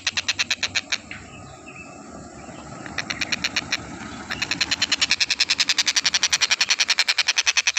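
A tengkek buto bird singing a fast, rattling run of sharp repeated notes, about ten a second. The run breaks off about a second in, returns in a short burst, and from about halfway through goes on louder without a break.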